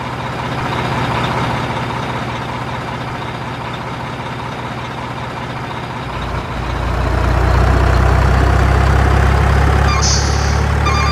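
Truck engine sound running steadily, growing louder and deeper about six seconds in, with a brief hiss near the end.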